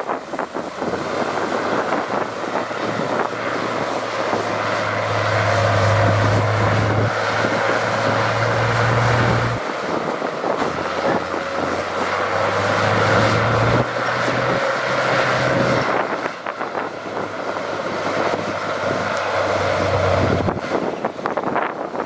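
Heavy diesel earthmoving machine running under load. Its low engine drone strengthens and eases several times over a steady rushing, mechanical noise.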